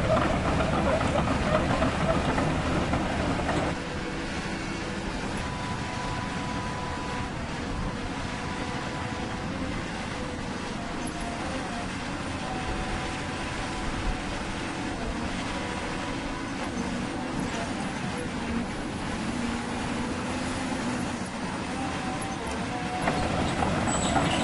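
Radio-controlled CAT 336 model excavator running its hydraulics, a steady mechanical whine with shifting tones as the ripper arm is raised and driven into hard-packed soil. It is louder for the first few seconds, drops to a steadier level about four seconds in, and swells again near the end.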